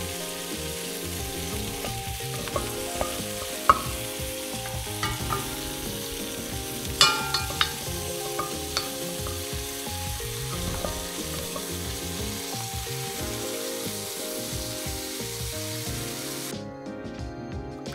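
Woodcocks searing in olive oil and duck fat in an enamelled cast-iron casserole, sizzling steadily, with a few sharp knocks of a wooden spoon against the pot as the birds are turned. The sizzle cuts off near the end.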